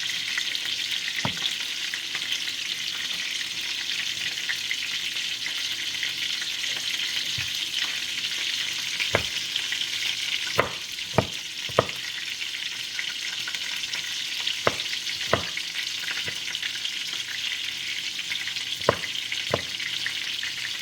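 Chicken pieces frying in hot oil in a pot, a steady sizzle as they brown. Sharp knocks of a utensil against the pot come now and then, most in the second half.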